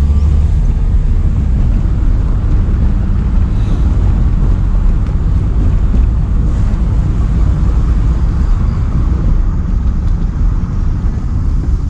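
Car on the move: a steady, loud low rumble of road and engine noise.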